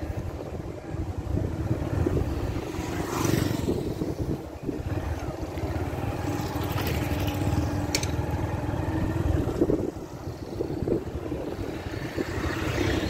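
Motorcycle engine running steadily with road and wind rumble, heard from the pillion seat of the moving bike, with a brief sharp tick about eight seconds in.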